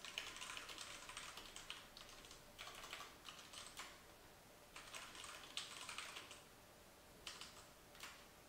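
Faint typing on a computer keyboard: rapid keystrokes in four or five short runs with brief pauses between them, as two short commands are typed.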